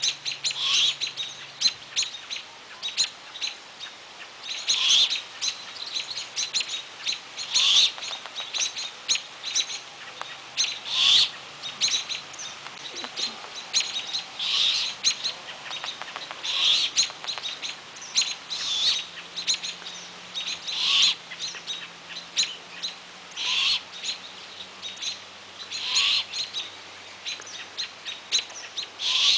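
Great horned owlet's begging call: a short, hoarse, hissing screech repeated about every two to three seconds.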